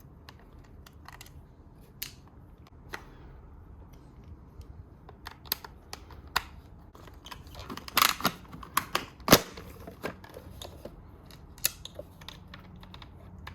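Screwdriver clicking and scraping against the battery screws and plastic housing of a Dyson V8 vacuum as the screws are undone. The clicks are scattered and irregular, with a louder run of them a little past halfway.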